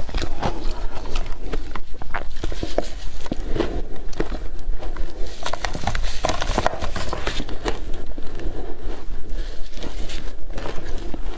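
Close-miked crunching and chewing of yellow powdery snow: a dense run of sharp crackly bites and crunches.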